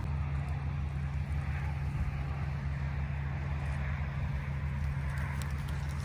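Rice combine harvester's engine running steadily: an even, low drone. A few faint clicks come near the end.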